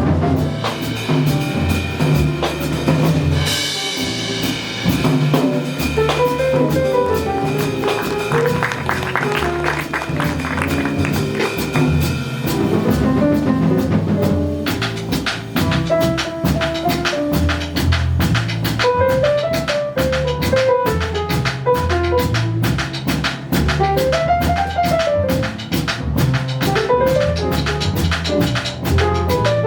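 Live jazz band playing: a melodic line over bass and drum kit, with a cymbal crash about three and a half seconds in and a busier, steady cymbal pattern from about halfway through.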